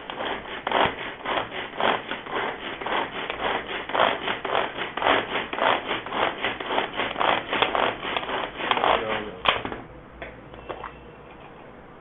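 Pull-string manual mini chopper with three stainless steel blades chopping onion: the string is pulled over and over, each pull a rasping whir of the blades spinning through onion in the plastic bowl, about three a second. The pulling stops about nine and a half seconds in with a sharp click, followed by a few faint clicks.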